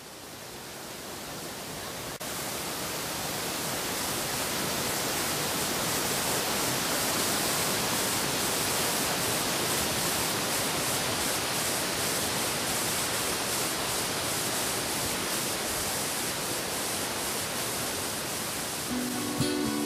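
Rushing mountain stream cascading over boulders: a steady hiss and rush of water that fades in over the first few seconds. An acoustic guitar comes in at the very end.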